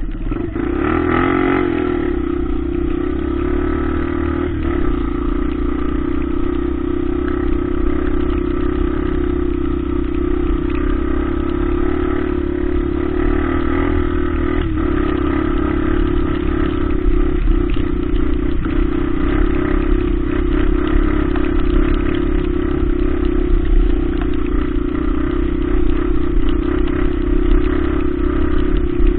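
Single-cylinder four-stroke trail motorcycle engine running at steady revs, its pitch held nearly constant while riding through a muddy, waterlogged field.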